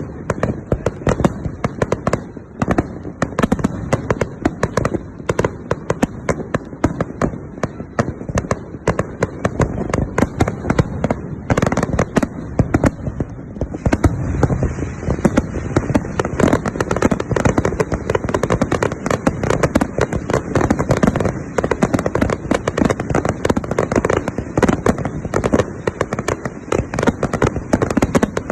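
Fireworks display: a continuous, dense barrage of rapid bangs and crackles, with no break.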